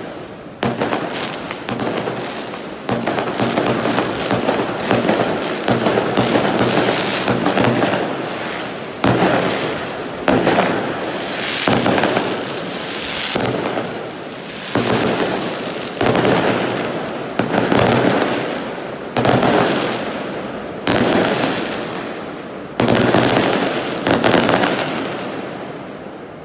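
Fireworks going off: a dense run of sharp cracks at first, then a series of sudden bangs about every one and a half to two seconds, each trailing away, before dying down near the end.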